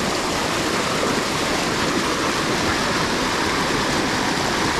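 Swift creek water rushing over rocks in a steady, even rush.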